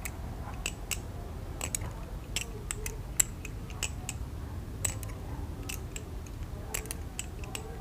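Balisong (butterfly knife) flipped through rollover loops: sharp metallic clicks of the handles swinging around and knocking against the blade, coming irregularly two or three times a second.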